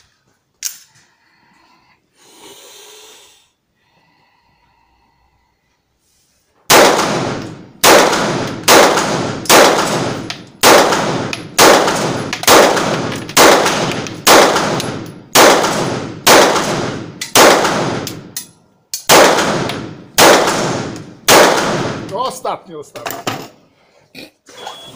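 A Bul 9 mm pistol firing fifteen shots, about one a second, with a short pause before the last three. Each shot echoes briefly in the indoor range.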